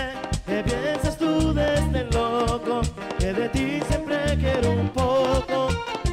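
Live Latin band music: acoustic-electric guitar, electric bass, hand drum and metal scraper percussion keeping a steady rhythm, with a man singing lead into a microphone.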